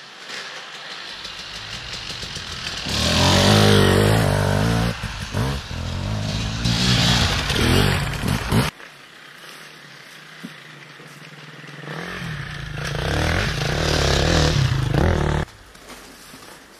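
Enduro motorcycles passing close by. The first builds up and revs hard, its pitch rising and falling, then cuts off suddenly about two-thirds of the way through. A second bike comes up a few seconds later and revs past, cutting off suddenly near the end.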